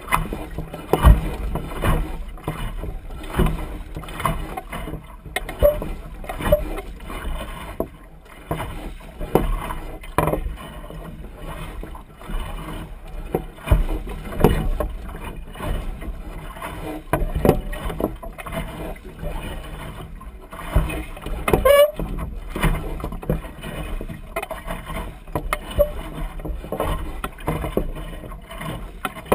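Water slapping and splashing irregularly against the hull of a small dinghy-type sailboat under way, over a steady low rumble.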